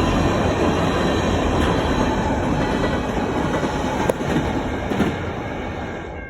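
Freight train cars rolling past, a steady loud rumble of steel wheels on rail with a couple of sharp clanks, dropping off near the end.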